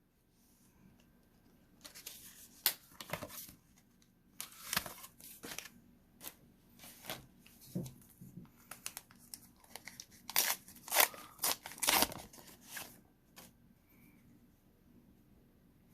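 Pokémon card pack wrappers being torn open and crinkled: a run of short tearing and rustling sounds with sharp crackles, lasting about ten seconds.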